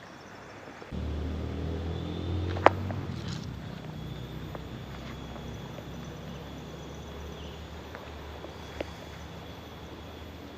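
A low engine hum that comes in abruptly about a second in and slowly fades away, with a sharp click a couple of seconds after it starts.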